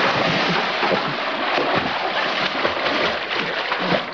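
Pool water splashing and churning continuously as a person plunges into a swimming pool and thrashes about.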